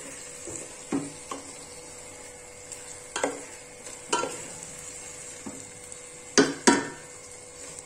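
A spatula stirring soft-cooked okra in a metal pot, knocking and scraping against the pot about six times, the two loudest knocks close together near the end. A low steady sizzle runs underneath.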